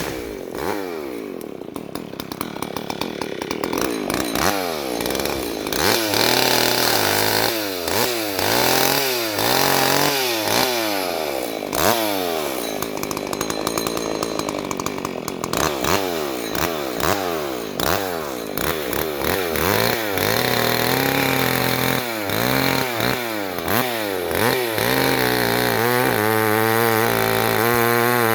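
Two-stroke chainsaw revved again and again, its pitch falling after each rev, then running at a steady pitch near the end.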